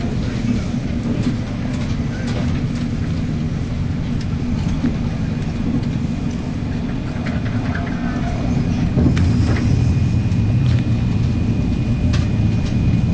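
ICE 1 high-speed train running at speed, heard from inside the passenger car: a steady low rumble of wheels on rails with scattered sharp clicks, growing louder about two-thirds of the way through.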